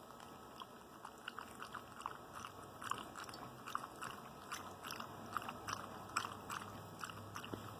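A dog chewing: a run of short, crunchy mouth clicks, irregular, a few a second, growing busier after the first second.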